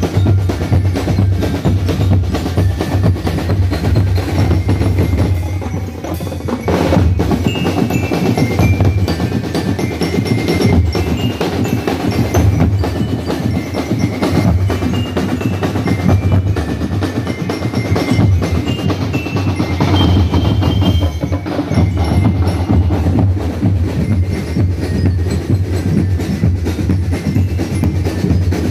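Drum and lyre band playing: a dense, continuous pattern of bass and snare drum strokes, with bell lyres ringing short high metallic notes over it.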